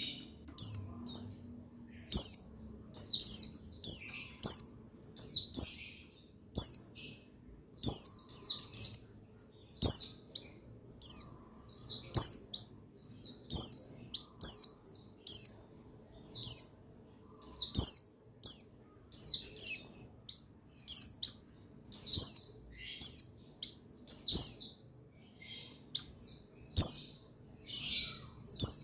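Buxtoni white-eye (pleci) calling: quick, high-pitched chirping phrases that follow one another in rapid bursts, several a second.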